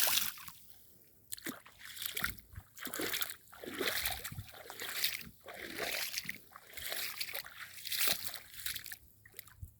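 Footsteps in sandals wading through shallow rainwater over mud, a splash and slosh with each step in a steady walking rhythm, stopping near the end.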